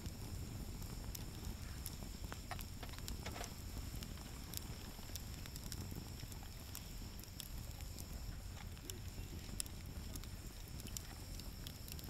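Wood fire crackling, with sharp pops scattered irregularly through it over a low steady rumble.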